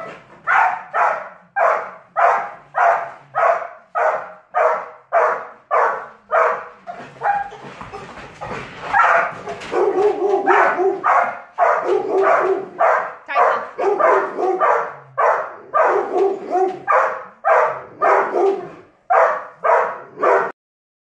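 Dog barking over and over in a fast, steady run, about one and a half barks a second, cutting off abruptly near the end.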